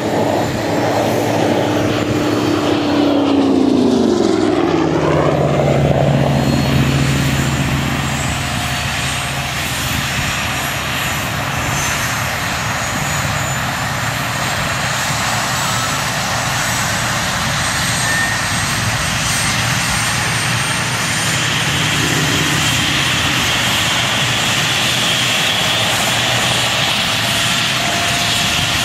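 Mi-24 attack helicopter flying past, its twin turboshaft engines and rotor running loud. The pitch drops sharply as it passes, about four seconds in, then the sound carries on as steady rotor and turbine noise with a faint high whine.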